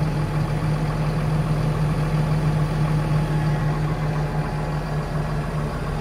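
AGCO Challenger MT575D tractor engine running steadily at low speed, heard from inside the cab, as it powers the loader hydraulics while the bucket dumps slowly.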